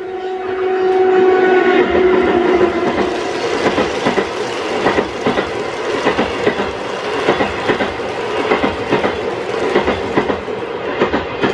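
N gauge model train of 20-series passenger cars rolling past, its wheels clicking rapidly over the rail joints. A steady whine in the first couple of seconds fades out.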